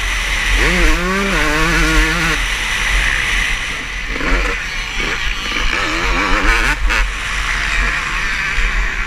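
Motocross bikes racing on the track, their engines revving up and down as riders work the throttle through the course.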